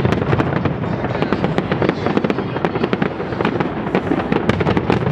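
A fireworks barrage: a dense, continuous run of sharp bangs and crackling pops, many each second, with no break.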